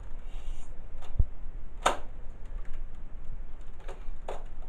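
A Nerf Mega Cyclone blaster being handled, primed and fired between shots: a dull knock about a second in, then a few sharp plastic clicks spread out through the rest.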